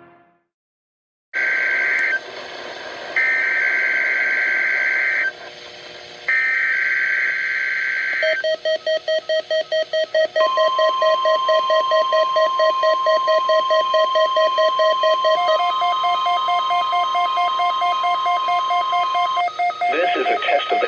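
NOAA Weather Radio test alert tones, in three stages. First come three bursts of screeching digital data tones (the SAME alert header) with hiss between them. Then a beeping alarm at about four beeps a second, joined after a couple of seconds by the steady single-pitch weather radio warning tone, which holds for about nine seconds before a voice begins.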